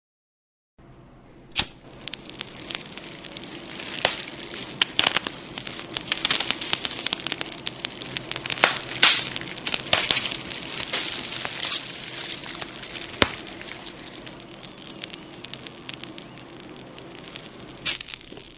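Fire crackling, with a steady hiss and many sharp pops and snaps that come thickest in the middle; it starts about a second in.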